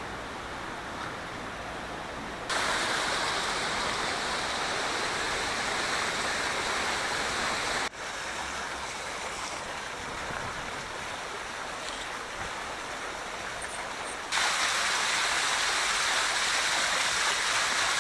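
Water splashing from ground-level fountain jets, a steady rushing sound that abruptly gets louder about two and a half seconds in, drops back about eight seconds in, and gets louder again near the end.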